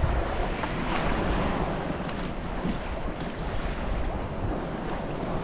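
Wind rumbling on the microphone with small ocean waves washing around the kayak: a steady rush with a low rumble underneath, no single sound standing out.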